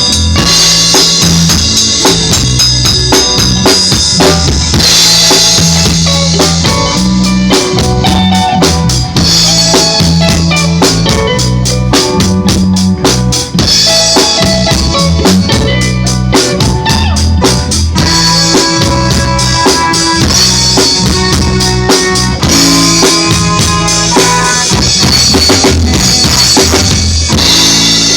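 A live band playing, with a drum kit (kick, snare and rimshots) keeping a steady beat over a bass line.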